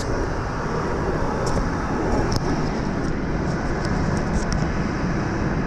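Steady cabin noise inside a Cessna Citation CJ3+ business jet, an even rush of engine and airframe noise, with a few faint ticks.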